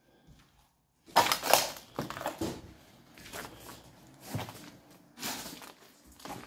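Footsteps crunching over debris strewn across the floor: a run of crunching steps starting about a second in, then several more spaced about a second apart.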